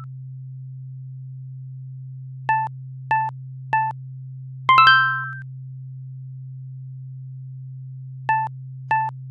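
Synthetic electronic tones: three short beeps about half a second apart, then a bright two-note chime that rings out, all over a steady low hum; three more beeps follow near the end.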